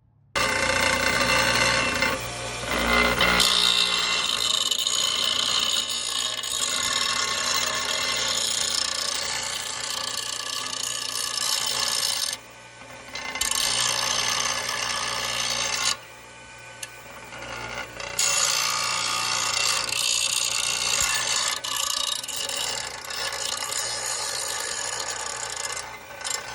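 Electric power tool running against the metal of a car exhaust pipe, with a steady high whine. It starts suddenly, stops briefly about twelve seconds in, and stops again for a couple of seconds around the middle before starting up once more.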